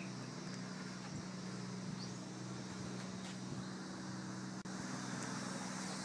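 A swarm of honeybees clustered under house eaves, humming: a steady, even low drone.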